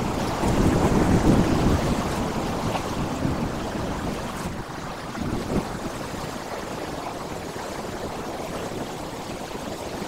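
Sea waves breaking and washing over flat rock ledges: a surf hiss that is loudest in the first two seconds, then eases off, with a smaller surge about five and a half seconds in.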